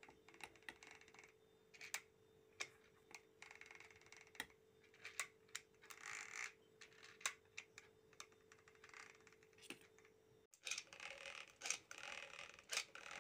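Faint, irregular clicking and scraping of a spoon against a bowl as besan (gram flour) batter is stirred with water, a little louder near the end.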